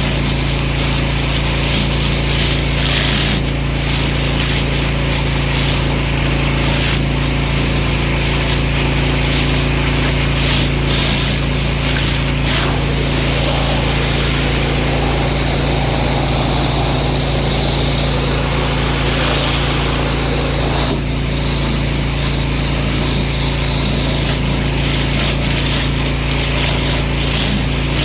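Pressure washer running steadily, its motor humming under the loud hiss of the water jet. The hiss brightens for several seconds in the middle, as the spray strikes a different spot.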